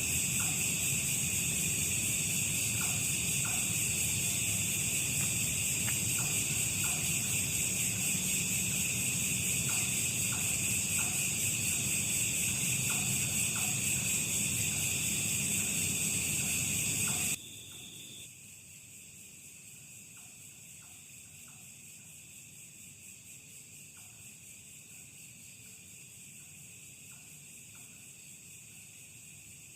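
Steady night chorus of crickets and other insects, a shrill high-pitched drone with faint scattered ticks under it. About two-thirds of the way through, the whole chorus drops suddenly to a quieter level.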